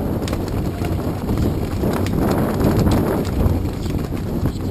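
Wind buffeting the microphone in a steady low rumble, with scattered irregular clicks and knocks.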